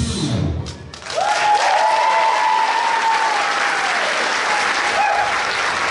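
Dance music cuts off, and about a second in an audience breaks into loud applause and cheering, with long whoops over the clapping.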